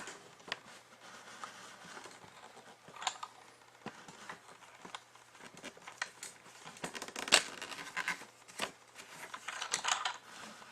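Handling noise: scattered light clicks, knocks and brief rustles as a camera is moved and repositioned by hand.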